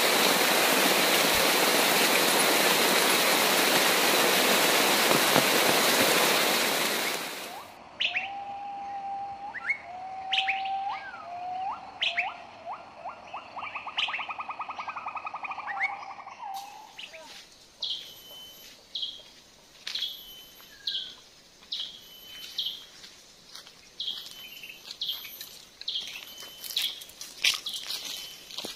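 A loud, steady rushing noise for about seven seconds that cuts off suddenly. Wild birds calling follow: a trilling phrase with quick rising notes, then short chirps repeated about once a second over a faint, high, steady tone.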